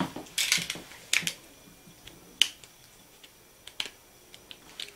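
A few sharp, scattered clicks and light rustles of small objects being handled on a tabletop.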